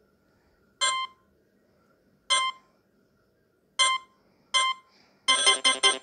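Nokia 3220 ringtone starting: four short electronic beeps, the last two closer together, then a dense, busy electronic tune begins about five seconds in.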